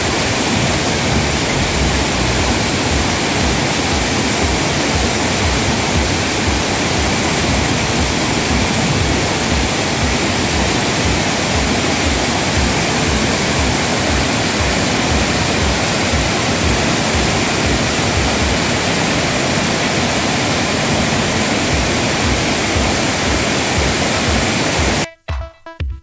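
Waterfall cascading over rocks: a loud, steady rush of falling water. It cuts off suddenly about a second before the end, where electronic music with a beat takes over.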